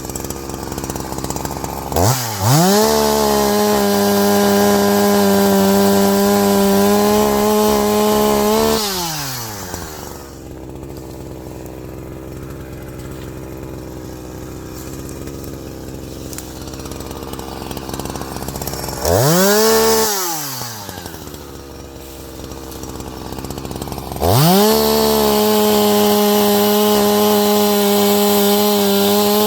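Petrol chainsaw cutting firewood. The engine revs up to full throttle and holds steady for about seven seconds, drops back to idle, gives a short rev, then goes to full throttle again near the end.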